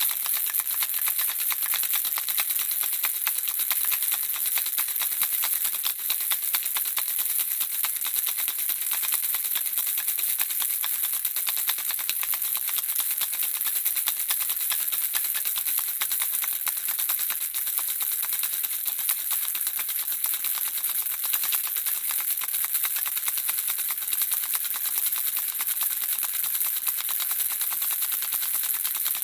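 Handheld baby rattle shaken without pause: a steady, dense stream of fast, high-pitched rattling clicks from the small objects inside.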